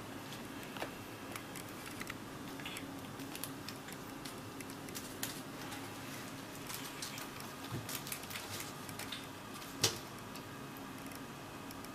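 Irregular light scratching, clicks and taps of a kitten's claws and paws on a mesh fabric cube, with one louder knock about ten seconds in as the cube is bumped.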